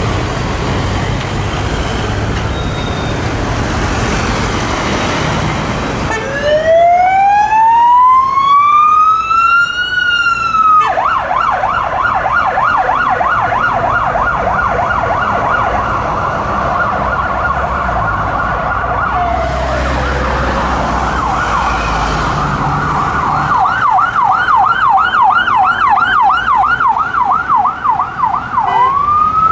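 City traffic noise, then a loud emergency-vehicle siren: a wail rising in pitch over about four seconds, switching to a fast yelp. The yelp winds down briefly about two-thirds through, picks up again, and a new rising wail begins near the end.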